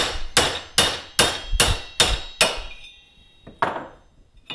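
Hammer striking a 30 mm steel hub-nut socket to drive the old, failed bearing out of a GE washing machine transmission brake assembly housing, with a metallic ring after each blow. About seven evenly paced blows, a little over two a second, then they stop; a single knock follows about a second later, and a light clink near the end.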